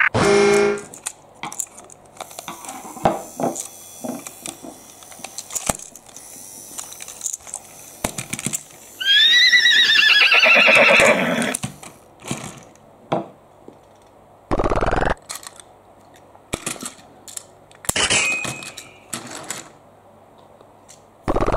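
Plastic toy trains being handled, with scattered clicks and knocks. About nine seconds in, a loud warbling sound that wavers up and down in pitch lasts for about two and a half seconds, and a few short loud bursts follow later.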